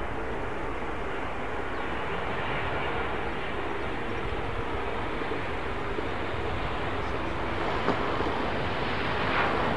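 Boeing 737 jet airliner on final approach and landing, its engines a steady, even rumble.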